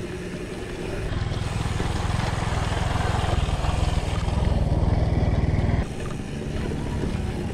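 A motorcycle engine running as it passes close by a bicycle riding over a gravel road, with tyre and road noise underneath. The engine noise swells about a second in and cuts off suddenly a little before the end.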